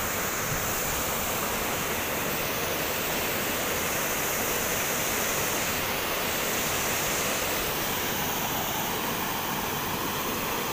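Steady rush of a fast-flowing, foaming river current.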